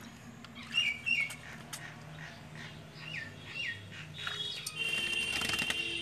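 A pet parrot bathing in a tub of water, splashing and flapping its wet wings, with the flapping and splashing loudest near the end. A few short falling chirps come in the first half, and a high steady tone joins about four seconds in.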